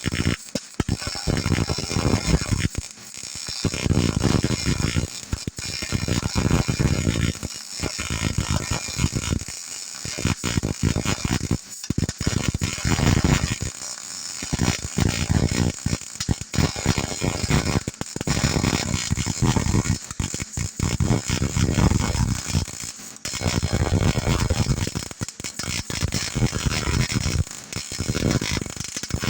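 Wire-feed (MIG) welder arc running in a string of short welds, each a second or two long with brief breaks between, laying the root pass on a backhoe bucket's frog.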